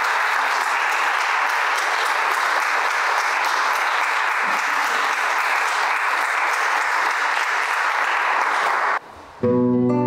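Audience applauding steadily for about nine seconds, then cutting off suddenly. Near the end an acoustic guitar starts playing plucked notes.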